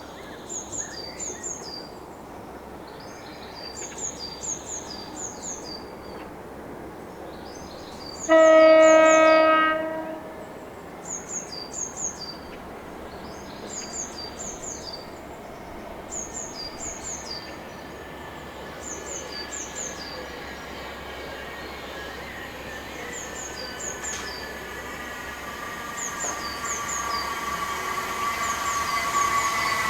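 Birds chirping over a quiet station, then a single loud train horn blast lasting about two seconds, about eight seconds in. In the last ten seconds or so a Class 377 electric train is heard approaching, growing steadily louder.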